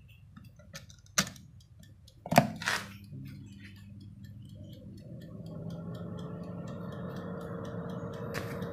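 Halogen convection oven being started: a couple of sharp clicks as its timer dial is turned, then a steady motor hum, and the fan whirs up to speed, its pitch rising slightly and settling. Faint steady ticking of the timer runs underneath.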